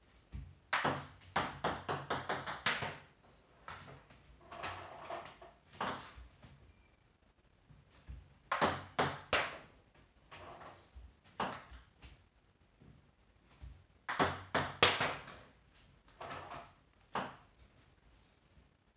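Table tennis ball struck by a paddle on topspin serves and bouncing on the table. It comes as several clusters of sharp, light clicks, the first trailing off in quicker and quicker bounces.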